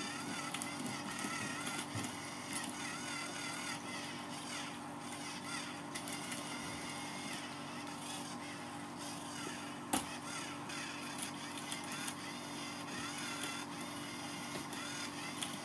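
Small electric motor of a cat teaser toy whirring steadily, with a whine that wavers in pitch, scattered light clicks, and one sharp knock about ten seconds in.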